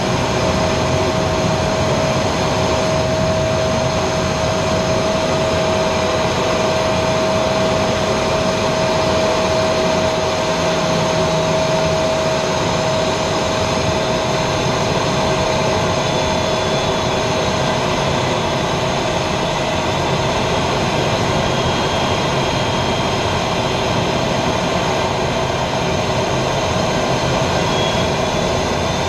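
Aero L-29 Delfin's Motorlet M-701 turbojet heard from inside the cockpit in flight: a steady, dense rush of engine and airflow noise with a steady whine, and a faint higher tone that rises near the end.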